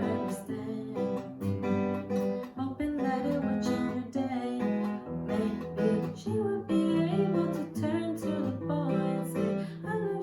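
Acoustic guitar strummed and picked in a steady pattern, with a singer's voice over it, in a live song performance.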